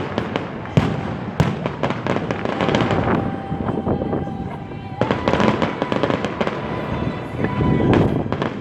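Fireworks going off: a dense run of crackling pops, with a couple of sharper bangs about a second in.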